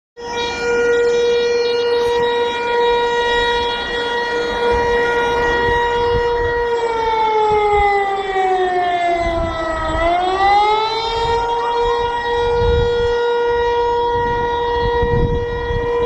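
Chilean emergency alert alarm: a loud, steady siren-like tone that, a bit before halfway through, slides slowly down in pitch for about three seconds, then climbs quickly back and holds steady again.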